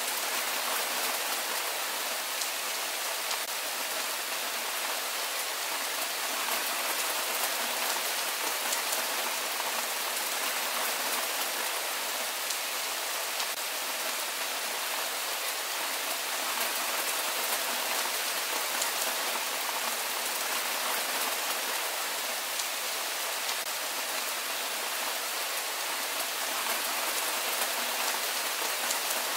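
Steady rain falling, an even hiss of many drops that holds level throughout.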